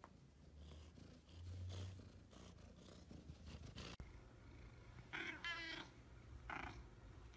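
A cat purring, a low steady hum in the first two seconds; then, after a cut, a grey-and-white cat giving a long wavering, trilling call about five seconds in and a shorter call soon after.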